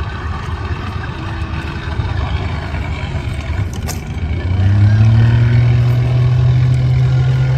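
An engine running with a low rumble; about halfway through its pitch climbs and it gets louder, then it holds a steady hum.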